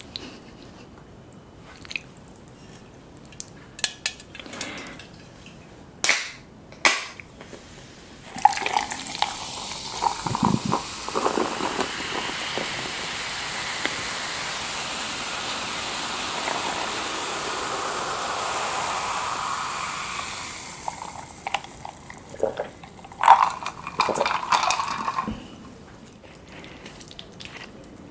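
A drink poured steadily into a glass for about twelve seconds, with light clicks and clinks of dishes and utensils before and after the pour.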